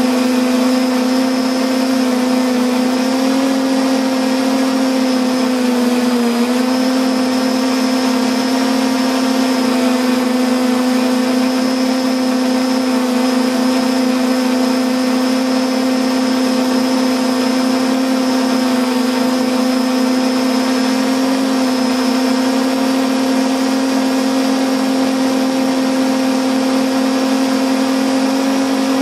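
Multirotor drone's electric motors and propellers humming at a steady pitch while it hovers, picked up by its own onboard microphone. The pitch dips briefly about six seconds in.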